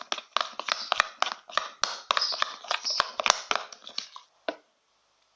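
Freshly activated black slime, glue and boric-acid water, being stirred by finger in a container: quick irregular sticky clicks and squelches, stopping about four and a half seconds in.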